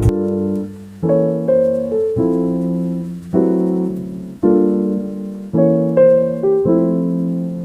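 Soft piano music: slow chords struck about once a second, each fading before the next.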